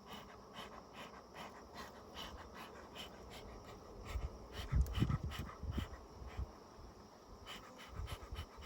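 Honeybees buzzing around an open hive, agitated enough that the keepers want more smoke. A cluster of louder low bumps comes from about four to six seconds in, with a few more near the end.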